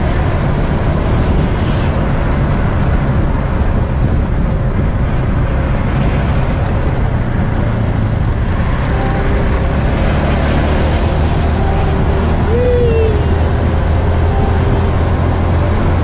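Steady rumble of a vehicle on the move: engine and road noise with a haze of wind over it. A brief wavering tone rises and falls about three-quarters of the way through.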